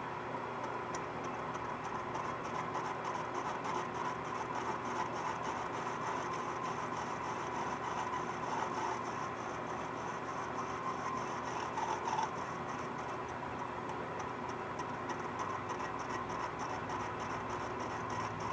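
Metal lathe running at slow speed while its cutting tool is fed into a weld bead: a steady machine whir with fine, even ticking.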